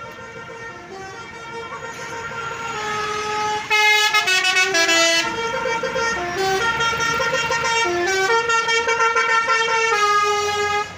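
Bus basuri (telolet) musical air horn playing a tune of changing notes. It grows louder as the bus approaches, turns loud about four seconds in, and stops just before the end.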